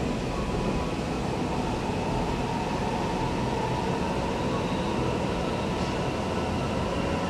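MRT metro train running along the line, heard from inside the passenger carriage: a steady rumble and rush of running noise with a faint high whine.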